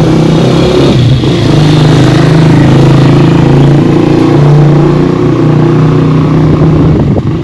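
A motor vehicle engine running close by, its pitch holding fairly steady with small rises and dips.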